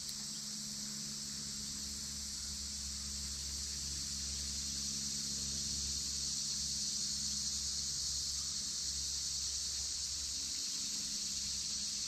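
Steady, high-pitched drone of an insect chorus, with a faint steady low hum underneath.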